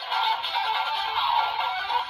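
Electronic sound-effect music playing from a toy transformation sword's small built-in speaker: a busy, tinny tune with no bass. This is the kind of standby or transformation loop that the DX Gotcha Saber plays.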